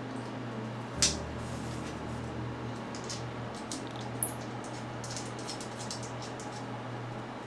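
Light clicks and ticks of small acrylic parts being handled and fitted together, the sharpest about a second in and another about four seconds in, over a steady low hum.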